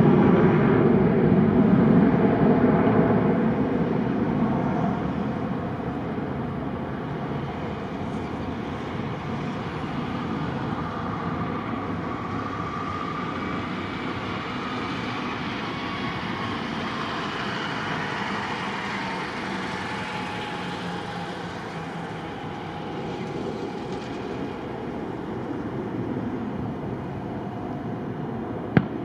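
Aircraft engine noise, loud at first and fading over the first few seconds into a steady rumble, with a faint whine that slowly falls in pitch. A single sharp click comes near the end.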